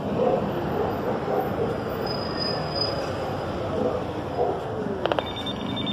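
Steady outdoor street noise, then about five seconds in a quick run of clicks followed by a buzzing electronic tone, typical of a building intercom keypad being dialled and starting to call.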